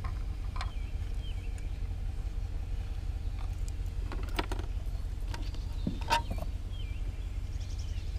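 Outdoor background: a steady low rumble, a few light clicks and knocks, and faint bird chirps in short wavering phrases near the start and again past the middle.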